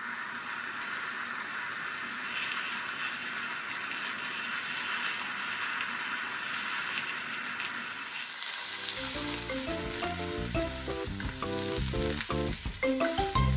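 Shiitake mushroom caps sizzling steadily in a hot frying pan as they brown. Background music joins about two-thirds of the way in.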